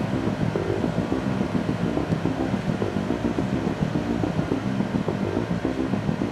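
Engine of a portable site water pump set running steadily at a constant speed.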